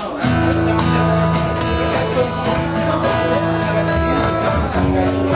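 Acoustic guitar music: strummed chords with long held notes, beginning abruptly just after the start.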